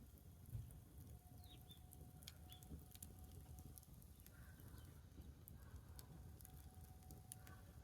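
Wood campfire crackling faintly, with scattered small pops and snaps, and a few faint bird chirps.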